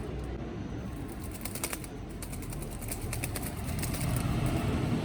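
Oriental turtle dove chick beating its wings in a quick flurry of flutters from about one to four seconds in, over a steady low rumble.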